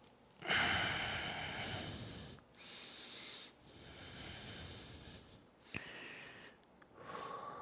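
A man's breathing during slow stretching: a strong breath out about half a second in, fading, then four softer breaths in and out, with a single small click about three quarters of the way through.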